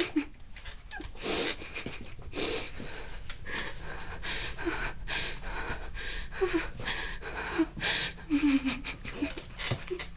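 A woman breathing hard and unevenly in fear, sharp breaths every second or so, with short whimpers between them in the second half.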